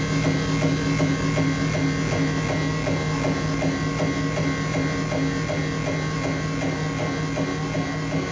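Hardcore electronic music played live by a DJ: a steady buzzing, distorted drone over a fast regular pulse.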